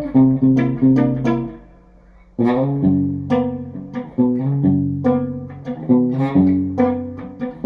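Telecaster electric guitar with flatwound strings, on its bridge pickup through a Quilter Aviator Cub amp's tweed channel, picking a low riff of short single notes, with a pause of about a second early on before the riff resumes. The short notes carry the muted, thumpy tone of a DIY rubber bridge mute.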